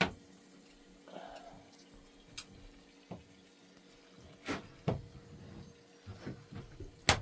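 Water slowly draining out of a small boat's hull: scattered drips and small splashes, with a sharp tap at the start and another near the end.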